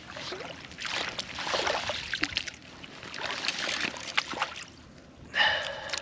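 Boots wading through shallow water, splashing and sloshing in several uneven bursts of steps. Near the end, a short, loud drawn-out "aaaah" from a person's voice.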